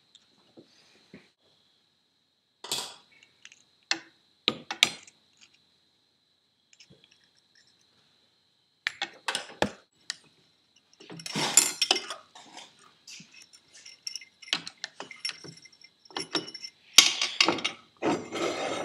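Scattered metal clinks, taps and rattles as a drill bit and chuck are handled on a drill press, with the motor off. The clatter comes in separate bursts and grows busier in the last couple of seconds.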